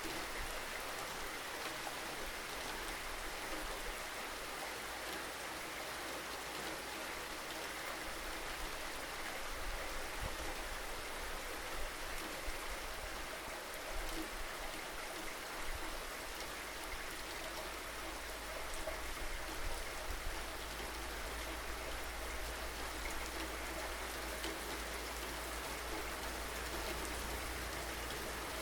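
Steady rain falling: an even, continuous hiss with scattered individual drops.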